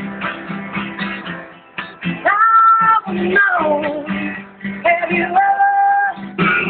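Acoustic guitar being strummed in a steady rhythm. From about two seconds in, a woman's voice sings long, held, bending notes over it, in three phrases.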